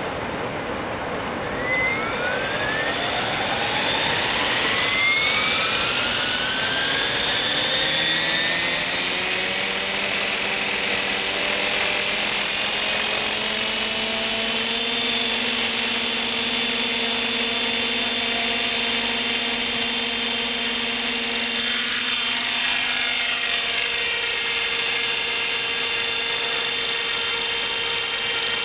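Thunder Tiger E720 radio-controlled helicopter spooling up: a whine that rises in pitch for about fourteen seconds as the rotor comes up to speed, then holds steady at head speed. In the last few seconds the pitch wavers a little as it lifts off into a hover.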